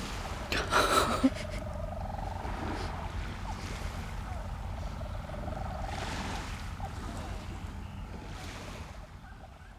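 Wind buffeting the microphone with a low rumble, under a long, slightly wavering purring call of a European storm petrel recording played through loudspeakers. A brief thump comes about a second in, and everything fades out near the end.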